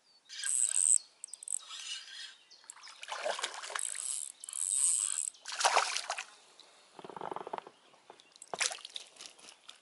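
A hooked chub splashing and thrashing at the water's surface as it is drawn in and grabbed by hand, in a string of uneven splashes that ease off toward the end.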